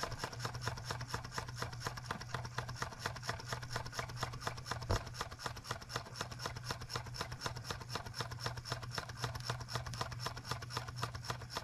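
Model Rider-Ericsson hot air pumping engine running right along, its linkages giving a rapid, even clicking with every turn of the flywheel, over a steady low hum.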